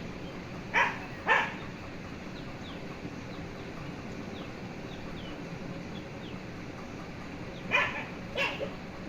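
A dog barking: two sharp barks about a second in, then two more near the end, over steady background noise.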